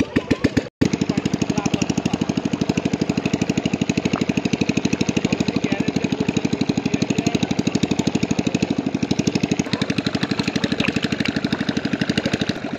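Small engine running steadily with a fast, even beat of about a dozen pulses a second. It drops out for an instant under a second in.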